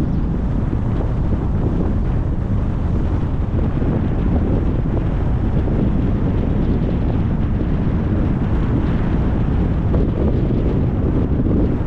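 Steady driving noise of a car on the road: a low tyre and road rumble mixed with wind buffeting the microphone.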